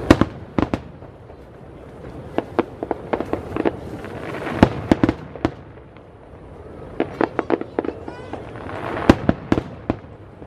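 Aerial fireworks bursting: irregular sharp bangs and crackles that come in clusters. The loudest reports are near the start, about four and a half seconds in and about nine seconds in.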